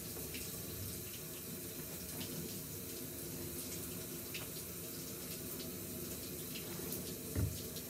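Water running steadily from a tap, with one short low thump near the end.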